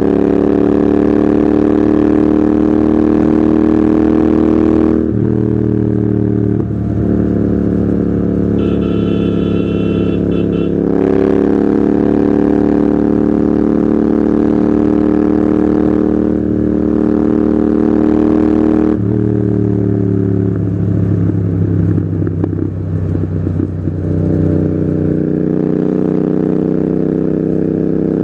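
Royal Enfield Continental GT 650's 648 cc parallel twin through a loud Red Rooster aftermarket exhaust, ridden at a steady throttle with the engine note stepping up and down a few times. About two-thirds of the way through, a few seconds of irregular crackling and popping from the exhaust.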